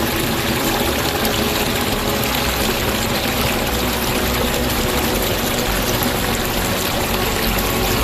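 Small waterfall: water pouring over a rock ledge, a steady rushing noise.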